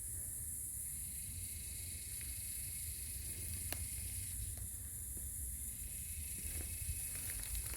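Insects in the bush droning steadily at a high pitch, with a low rumble underneath and one faint click a little before the middle.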